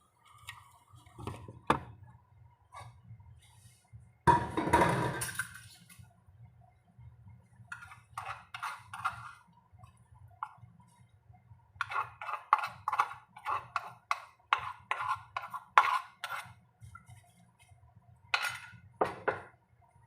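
Kitchen utensils and dishes being handled: scattered clinks and knocks, a louder clatter about four seconds in, and a quick run of light taps, about four or five a second, for several seconds past the middle.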